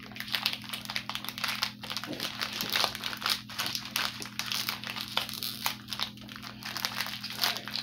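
A biscuit packet's wrapper crinkling as it is handled and opened, with dense, irregular crackling throughout.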